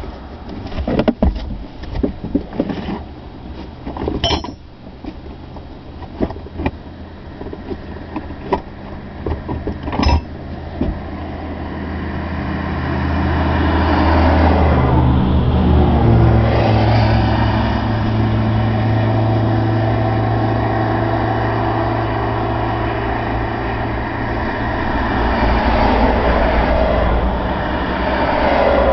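Car driving, heard from inside the cabin: a run of sharp knocks and rattles for the first ten seconds or so, then engine and road noise swell about twelve seconds in and hold as a steady drone.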